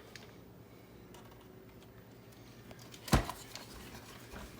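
Faint room tone with a few light clicks, broken about three seconds in by one sharp, loud knock, like a hard object set down or knocked.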